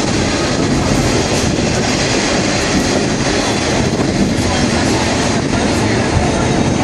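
Sagano scenic railroad passenger train running along the track, heard from aboard: a steady, even rolling noise of the wheels and carriage.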